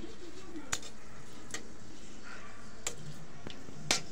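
Metal spatula tapping and scraping against a steel kadai while stirring whole spices frying in oil: a few sharp, irregular clicks, the loudest near the end.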